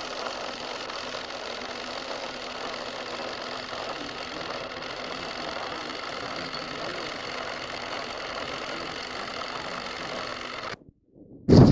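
8 mm film projector running, a steady mechanical whir with the rapid clatter of the film transport. It cuts off abruptly near the end.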